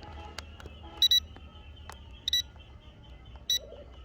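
Short electronic beeps from a toy quadcopter camera drone's controls as it is readied for flight: one double beep about a second in, another a little past two seconds, and a single beep near the end.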